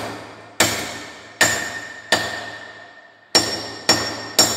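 Wooden mallet striking a hand groover to lock the grooved seam of a thin galvanised-iron sheet cylinder over a stake. Six sharp blows, each with a short metallic ring, with a pause of about a second after the third.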